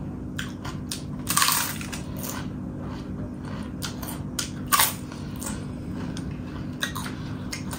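Close-up eating sounds: crunchy food being bitten and chewed, with many small crackles and two louder crunches, about one and a half and five seconds in.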